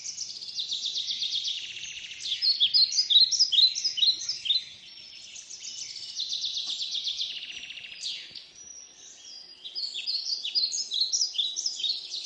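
Small songbirds chirping and trilling together in a dense, overlapping chorus of rapid high chirps, easing off briefly about five seconds in and again about nine seconds in.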